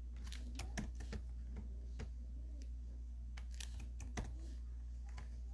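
Computer keyboard keys clicking irregularly, a few clicks a second, over a steady low hum.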